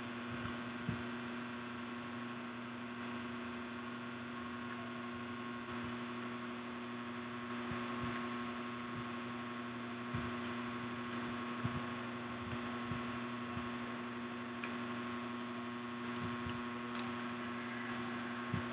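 Steady electrical hum, a constant low drone, with a few faint short clicks scattered through it.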